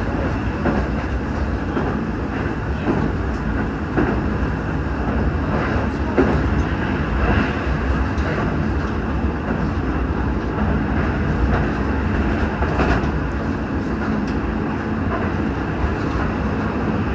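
Shin-Keisei Line commuter train running between stations, heard from inside the passenger car: a steady rumble of wheels on rail with a few faint clacks over rail joints.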